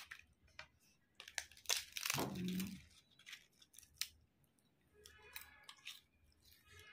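Crisp fried papad being broken and crumbled by hand: scattered sharp cracks and crackles, the loudest and longest about two seconds in.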